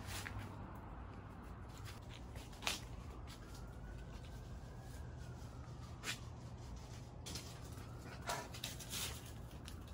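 Dry fallen leaves rustling and crackling in a few short bursts over a steady low background hum.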